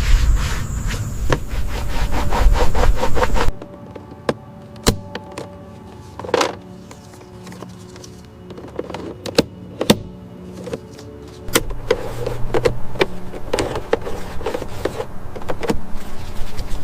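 Hand work on a car: rubbing or sanding strokes for the first few seconds, then a sudden change to scattered sharp clicks and taps, with steady noise returning later. Soft background music with held tones runs underneath.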